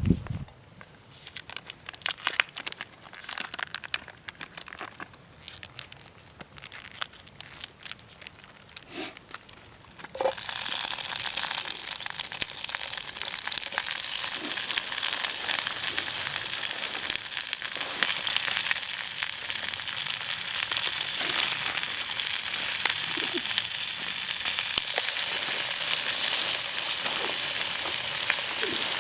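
Scattered light clicks and crinkling handling sounds, then about a third of the way in a loud frying sizzle starts suddenly and carries on steadily as food cooks in a hot pan.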